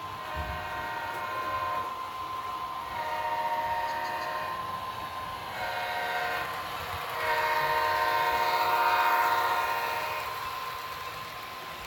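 Multi-chime air horn of an HO-scale Amtrak F40PH model locomotive, played through its Soundtraxx Tsunami 2 sound decoder: four blasts, the last held longest.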